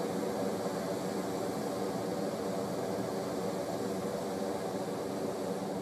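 Hot air balloon's propane burner firing, a steady roar heard from below.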